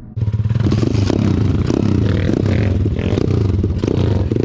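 Pit bike's small single-cylinder four-stroke engine running loud and steady close by, cutting in abruptly just after the start.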